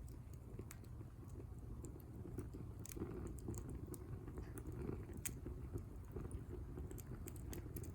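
Wood fire crackling in a campfire grill: irregular sharp pops and snaps scattered through, over a steady low background.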